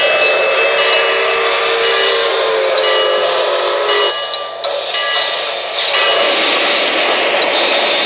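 K-Line O-gauge NYC J1e Hudson model steam locomotive's sound system blowing a long chime steam whistle, several tones held together, which cuts off abruptly about four seconds in. After a brief dip, a steady hissing noise follows from about six seconds.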